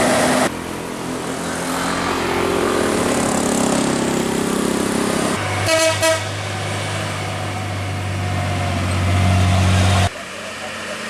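Diesel dump truck climbing an uphill bend: its engine hums under load, it gives two quick horn toots about halfway, then a deep engine drone grows louder as it comes past, cutting off abruptly near the end.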